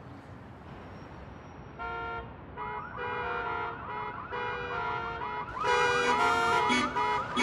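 Electronic musical car horn sounding a tune of held notes, with a warbling, siren-like tone running through them. It starts about two seconds in and gets louder near the six-second mark.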